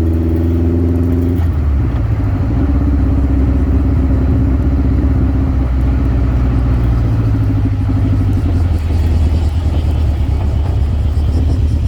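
Birkin Seven sports car's engine running steadily under way, its note changing abruptly about a second and a half in and getting a little louder just after.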